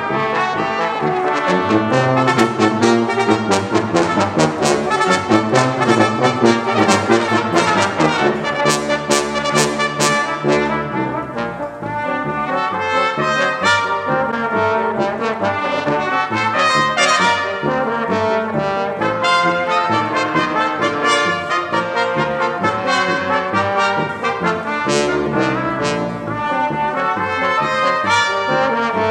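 Brass quintet of two trumpets, French horn, trombone and tuba playing a Spanish pasodoble, with rapid rhythmic notes and no pause.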